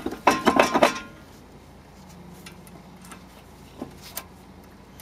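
Metal hand tool clinking against a rusty brake rotor and hub. A quick cluster of sharp clinks comes in the first second, then two light ticks near the end.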